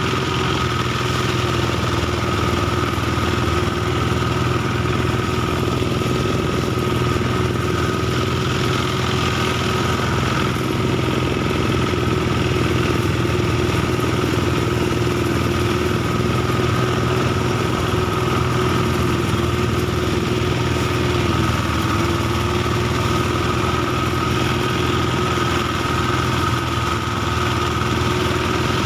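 Small engine of a rice thresher running steadily at constant speed, with a slight dip in pitch about two-thirds of the way through.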